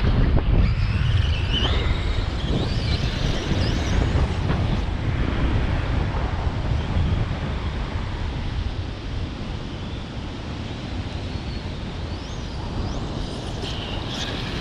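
Strong wind buffeting the microphone with a steady low rumble. Over it, the high whine of a large RC car's brushless electric motor rises and falls as it accelerates and slows, about a second in and again near the end.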